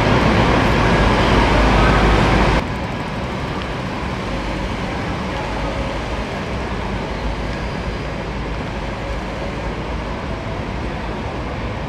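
Steady city street noise with a traffic-like rush and no distinct events. It drops suddenly to a quieter, even level about two and a half seconds in.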